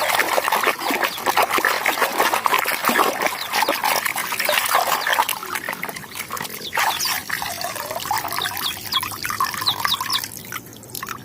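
Water splashing and trickling as mud is washed off a toy, with a dense patter of small splashes and clatters through the first half that thins out and quietens about halfway through.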